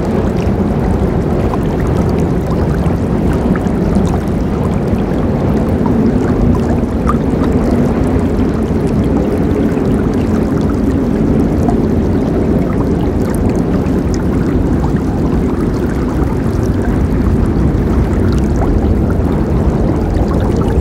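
River water flowing: a steady, unbroken rush, deep and full, with small splashes flecked through it.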